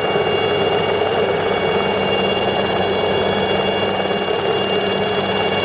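Military helicopter hovering close overhead: a steady turbine whine made of several high-pitched tones over a constant, dense rotor and engine noise.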